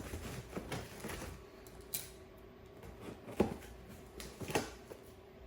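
Cardboard shipping box being handled and opened by hand: scattered light knocks, clicks and rustles with gaps between them, over a faint steady hum.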